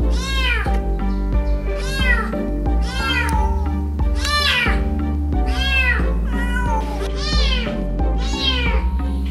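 A mother cat meowing over and over, about once a second, each call rising then falling: crying for her kitten that has fallen down the drain. Background music runs underneath.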